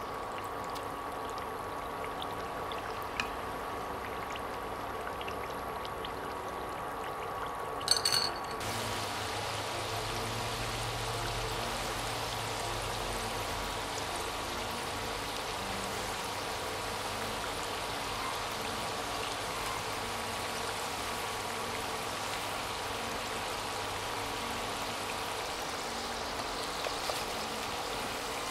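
Potato fries deep-frying in hot oil, bubbling and sizzling steadily. A brief clatter about 8 seconds in, after which the sizzle is denser and louder.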